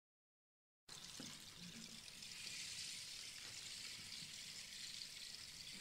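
Silence for about the first second, then a faint steady hiss of room tone from a live recording, with no music yet.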